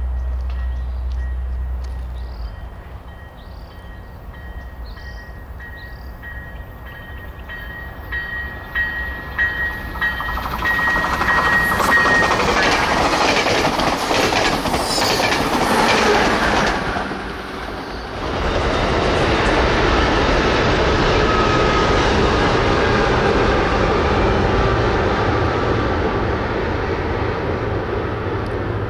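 COASTER commuter train of bi-level passenger cars approaching along the track with a faint steady high tone, then passing close by with a loud rattle of wheels and cars about halfway through. After a short dip, a steady, even rumble of a train on a long wooden trestle follows.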